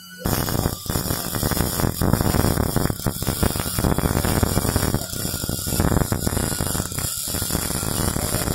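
MIG welding arc crackling steadily as a bead is run on a 3G (vertical) test plate. The arc strikes just after a short silence and briefly falters or breaks twice, about five and seven seconds in.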